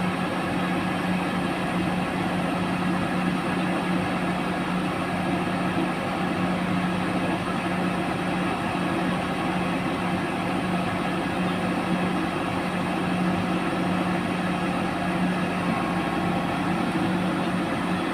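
Heavy diesel engine running steadily at idle with an even, unchanging hum.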